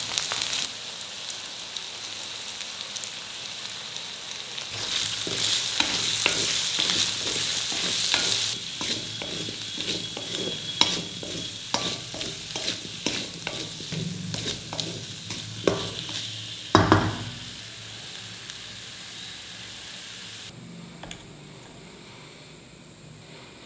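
Potato cubes frying in oil in a steel kadai, sizzling steadily while a metal spatula scrapes and clicks against the pan as it stirs. There is a loud knock of the spatula on the pan near the end, and the sizzle then dies away in the last few seconds.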